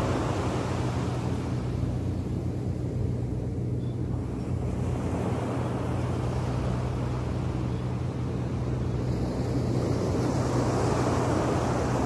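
Small waves breaking and washing up a sandy beach in a continuous surf wash that eases a few seconds in and swells again near the end, with a steady low hum underneath.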